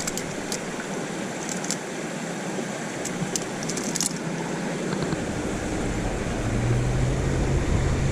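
Steady rush of water pouring over a creek spillway, with a few light, sharp clicks in the first four seconds. About six seconds in, a vehicle's low engine hum comes in and grows beneath it.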